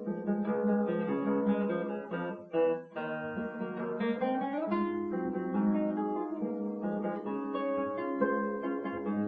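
Solo classical guitar playing plucked notes, with a short upward slide about four seconds in.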